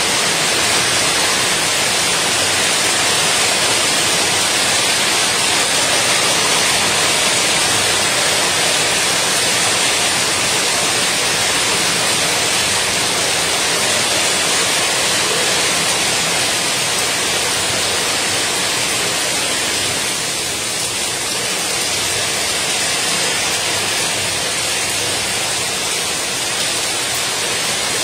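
Heavy rain pouring down: a loud, steady hiss of a downpour.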